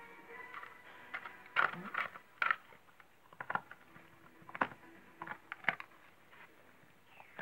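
Dog chewing a dried beef ear: irregular crunches and cracks as its teeth work the hard chew, some coming in quick clusters.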